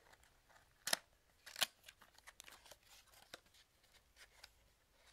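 A small cardboard box of 9mm cartridges being opened by hand: two sharp snaps about one and one and a half seconds in, then light ticks and rustling as the box is handled.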